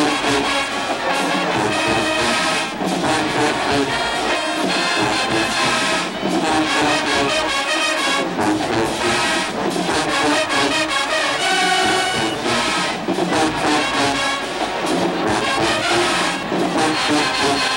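Marching band playing loudly in the stands: a full brass section of trombones, sousaphones and trumpets over a steady drum beat.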